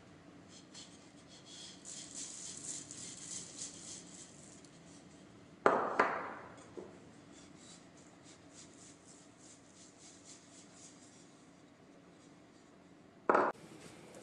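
Dry spice seeds shaken from a wooden scoop into a stainless steel pot of rye batter, a light crackly pattering that comes and goes. Two loud knocks stand out, one about six seconds in with a short ring after it and one just before the end.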